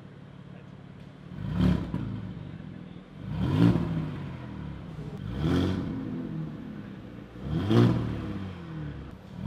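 2019 Porsche Cayenne S 2.9-litre twin-turbo V6 through a de-catted Armytrix valved exhaust with the valves closed, idling, then blipped four times. Each rev rises sharply and falls back to idle.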